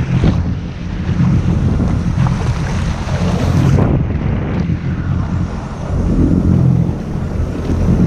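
Sea-Doo RXP-X 300 jet ski engine running, under heavy wind buffeting the microphone and waves washing around the hull.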